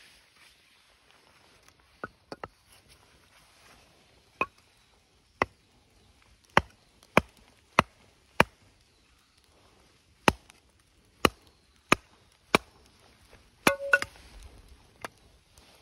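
Hatchet chopping into a small stick of firewood set on a stone: about fourteen sharp wooden knocks at uneven intervals. A louder cluster of knocks comes near the end as the stick splits apart.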